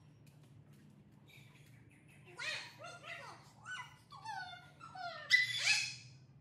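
Dog whining: a run of short, high-pitched whines, each falling in pitch, growing louder with the loudest about five seconds in.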